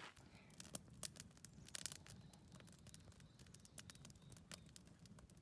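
Faint scattered clicks, scratches and rustles, like fabric or bedding being handled, over a low steady hum.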